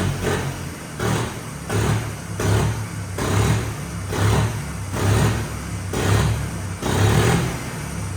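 John Deere 5305 tractor's diesel engine running with its silencer removed, straight out of the open exhaust port, surging in regular pulses about every 0.7 s.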